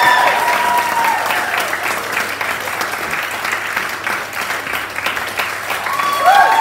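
Small audience applauding, with whoops and cheers rising up near the end.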